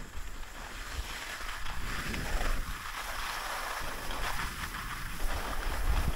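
Skis sliding over groomed snow, a hiss that swells and fades, with wind rumbling on the camera microphone.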